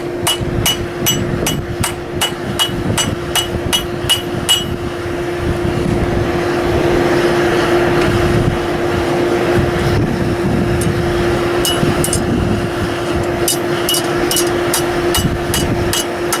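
Blacksmith's hammer striking steel on an anvil, about three ringing blows a second. The hammering stops about four and a half seconds in and starts again in a steady run near the end. A steady hum runs underneath.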